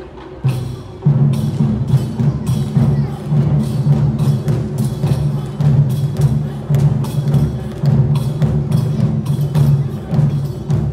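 Loud music with heavy drums and percussion over a steady low bass, starting abruptly about half a second in.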